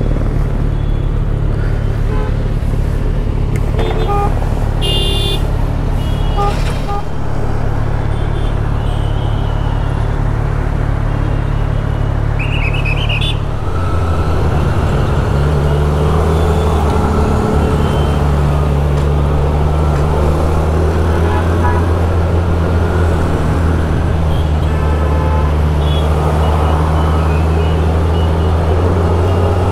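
Kawasaki Z1000SX inline-four running steadily in slow city traffic, heard from on the bike, with surrounding traffic noise and a few short car horn toots in the first half. About halfway through the engine sound changes and grows stronger as the bike rides on at low speed.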